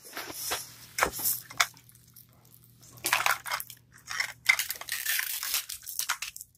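Plastic crinkling and rustling in irregular bursts, with sharp clicks, as a Mini Brands toy capsule's plastic shell and wrappings are handled and opened by hand.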